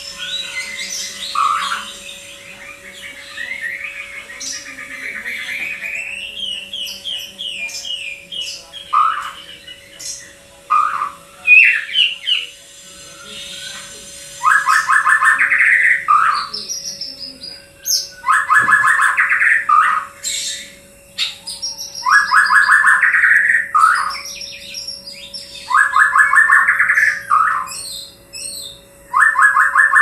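White-rumped shama singing: varied whistled and warbled phrases at first, then, from about halfway, a loud rattling phrase of fast repeated notes that returns every three to four seconds, with higher notes in between. A faint steady hum runs beneath.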